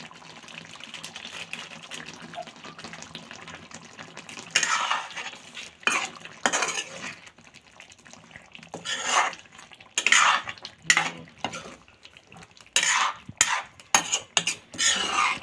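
Spatula scraping and stirring chicken curry in a metal kadai, over a soft sizzle of simmering gravy. The scraping starts about four and a half seconds in and comes in loud, irregular strokes.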